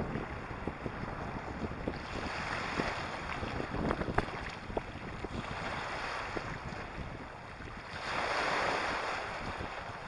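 Small waves washing onto a pebble and sand shore, the wash swelling about two seconds in and again around eight seconds in. Wind buffets the microphone, with scattered small clicks.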